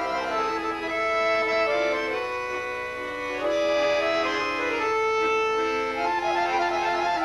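Accordion playing a melody of held notes that change about once a second, with chords sounding beneath.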